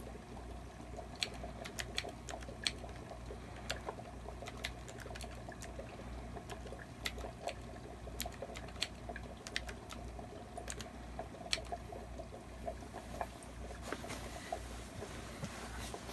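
Keys of a hand-built split keyboard being pressed and released, giving sharp, irregular clicks about one or two a second over a steady low hum. Near the end there is a short rustling as a hand moves close.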